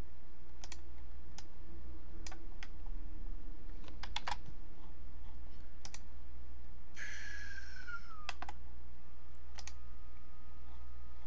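Scattered single clicks of a computer keyboard and mouse, a second or so apart, over a steady low electrical hum. About seven seconds in, a brief tone with overtones glides down in pitch.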